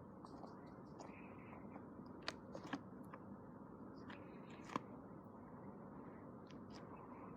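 Faint sticky clicks and pops of slime being handled and poked with fingers, over a steady low hiss. The sharpest clicks come a little after two seconds in and again just before five seconds.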